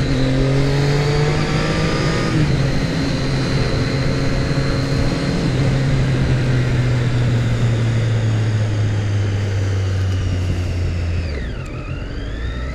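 2014 Triumph Street Triple R's 675 cc inline-three engine running under way, with wind rush over the helmet microphone; its pitch slowly sinks as the bike rolls along. Near the end the engine note drops and the revs dip sharply, then pick back up.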